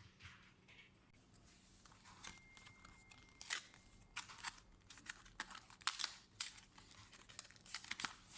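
Plastic packaging being crinkled and torn by hand, in a run of irregular rustles and crackles that start about two seconds in.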